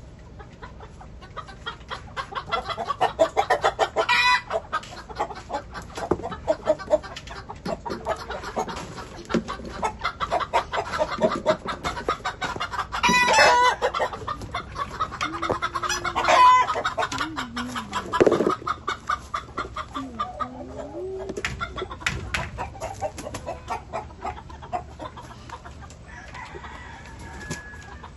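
Hens clucking steadily in rapid pulses, with several loud squawks breaking out, the strongest about four, thirteen and sixteen seconds in.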